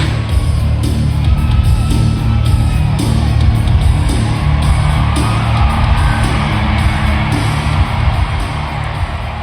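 Loud music with a heavy, steady bass beat, with yells and whoops over it.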